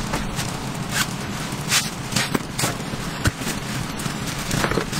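Rustling and short soft knocks of a dark fabric bag being handled and shifted on a wooden floor, several separate strokes, over a steady hiss.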